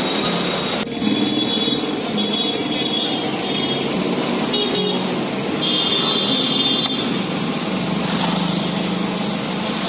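Street traffic running past, with car horns tooting several times.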